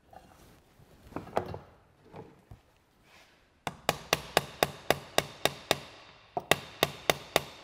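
Hammer blows on a steel driver, knocking a new pivot pin into a Ford 3000 tractor's hydraulic top lid: sharp, ringing metal-on-metal strikes about four a second, with a brief pause about two-thirds through. They are preceded by some clatter of parts being positioned.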